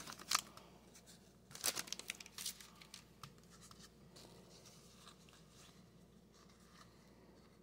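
Foil trading-card pack wrapper crinkling as the stack of football cards is pulled out, with more crinkles and card rustles about two seconds in, then only faint sliding and flicking of the cards being thumbed through.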